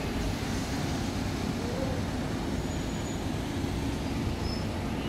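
Steady road traffic noise from a busy city street, cars passing with a low rumble.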